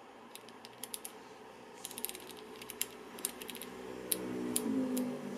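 Panasonic GH5 rear control dial and buttons clicking under a thumb: a run of sharp detent clicks as the dial is turned step by step, quick clusters about two seconds in and single clicks after. A low hum swells in near the end.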